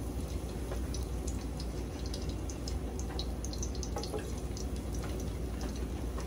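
Garlic sizzling and crackling as it goes into hot cooking oil in a pot, with light taps of a metal spoon against the pot.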